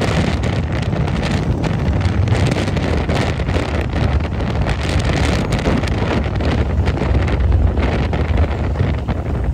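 Wind buffeting the microphone on a moving Harley-Davidson motorcycle, with a steady low rumble underneath.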